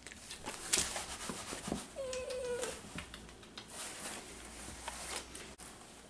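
Italian greyhound giving one short, excited whimper that falls slightly in pitch about two seconds in, amid snuffling, licking and jacket-rustling noises as she presses against a man's face.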